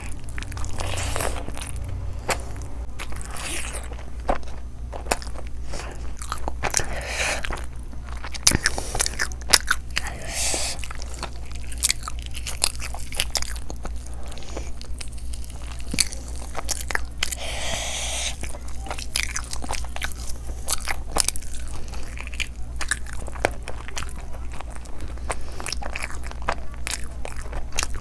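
A person biting, crunching and chewing fried chicken leg pieces in curry and folded roti, with many sharp mouth clicks.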